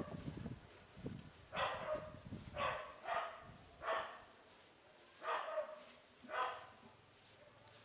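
An animal giving a series of about seven short barks, roughly one a second, with low rustling in the first second.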